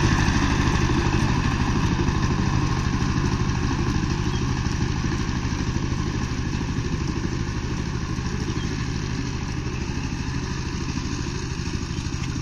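Power tiller's single-cylinder diesel engine chugging steadily under load as its rotary blades churn dry soil, slowly growing fainter.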